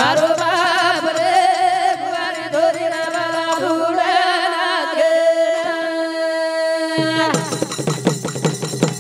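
Devotional folk singing: a man's voice sings a long, wavering melodic line over a steady held tone. About seven seconds in, a drum and small hand cymbals come in with a fast, even rhythm.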